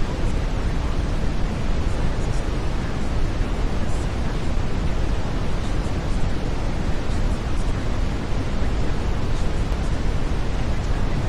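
Steady brown noise: an even, unbroken rushing rumble, heaviest in the low end, that never changes.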